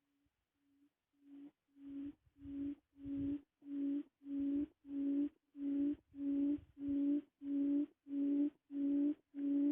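Repeated electronic beeping tone at one low pitch, about five beeps every three seconds, fading in from about a second in and growing steadily louder.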